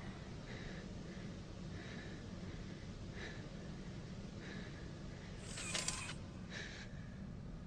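Faint breathing and small movements of people after dancing, over a steady microphone hum and hiss, with a louder breath a little before six seconds in.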